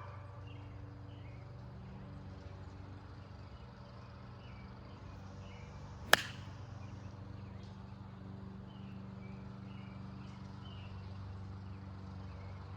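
One sharp club-on-ball strike about six seconds in: a hickory-shafted golf club hitting a gutty ball. Faint bird chirps and a steady low hum carry on underneath.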